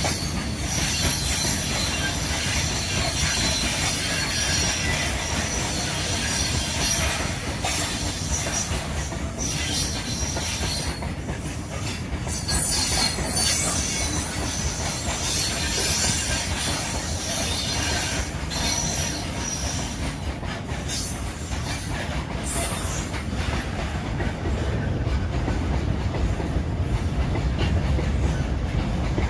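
Train running past on the track: a steady rumble of wheels on rails with high-pitched wheel squeal, which fades away over the last few seconds, leaving the low rumble.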